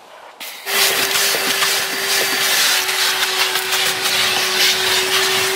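A vacuum cleaner switches on about half a second in and runs steadily, a loud rushing noise with a steady hum through it, as it cleans the truck cab's floor carpet.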